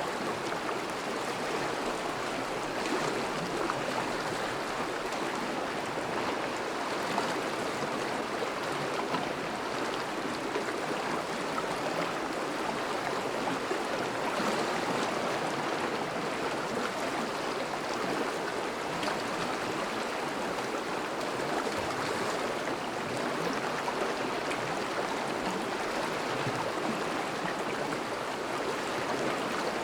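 River water flowing steadily in a shallow current, an even rushing and burbling with no breaks.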